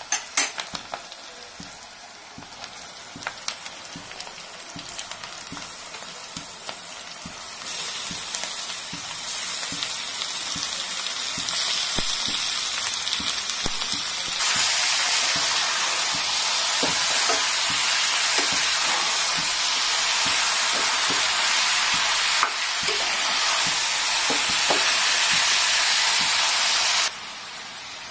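Mutton pieces frying in hot oil with onions and curry leaves, a steady sizzle that grows louder in steps, after a few sharp clicks at the start. The sizzle cuts off suddenly near the end.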